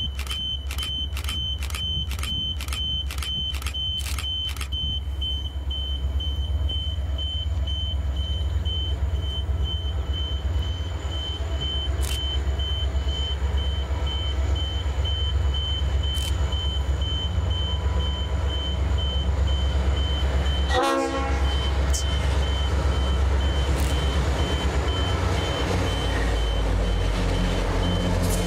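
Qube diesel locomotive hauling loaded hopper wagons as it approaches, its engine's deep rumble growing steadily louder. A rapidly pulsing high-pitched beep sounds throughout, with a run of regular clicks in the first few seconds and a brief pitched blast about two-thirds of the way through.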